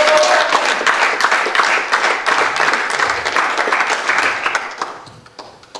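A congregation applauding, many hands clapping densely, then dying away about five seconds in.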